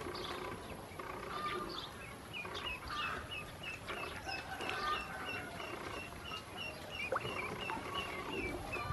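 Ducklings peeping: scattered calls at first, then a steady run of short, high, slightly downslurred peeps at about three a second from about two seconds in.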